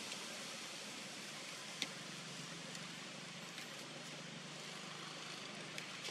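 Faint steady outdoor background noise with a low hum, broken by a few light clicks about two seconds in and near the end.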